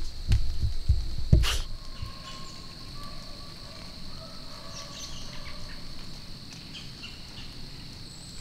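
Steady high-pitched chorus of crickets and other insects in woodland, with a few faint bird chirps. In the first second and a half, a few low thumps and a rustle as the camera is handled and turned.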